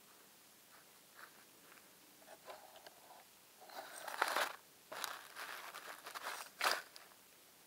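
Muffled crunching and scraping as grass and leaves rub and press against the camera's housing. Faint at first, it grows louder from about halfway in, with a sharp knock near the end.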